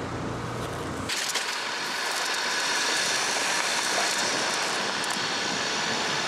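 Land Rover Discovery Sport driving on a gravel outback dirt road, heard from a camera mounted outside the car: a steady rush of tyres on gravel and wind. Before that, about a second of low engine rumble from the stationary convoy.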